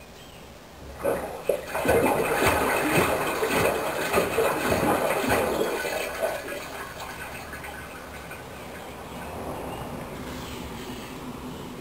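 Hoover washing machine on a rinse of its wool cycle: water gushes and splashes about a second in, loudest for about five seconds, then settles to a quieter, steadier flow.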